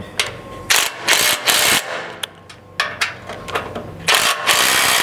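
Ridgid cordless impact driver with a 5/16 hex bit hammering button-head bolts tight, in several short bursts.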